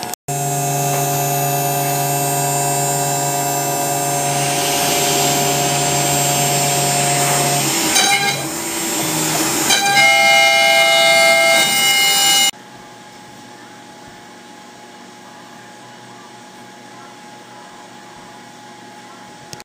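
Laguna CNC router carving a wooden sign: a steady machine whine from the spindle and axis motors, its pitch shifting about eight and ten seconds in as the machine changes its moves. About twelve seconds in it drops abruptly to a much quieter steady hum.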